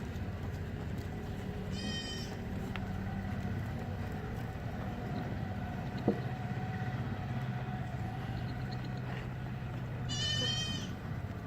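Goat bleating twice, one short wavering call about two seconds in and a longer one near the end, over a steady low hum. A single sharp click about halfway through.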